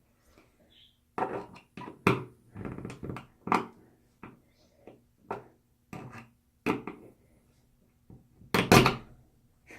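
Irregular knocks, taps and thuds of hand tools and hardware working against the wall while a stubborn screw for a towel rack is fitted.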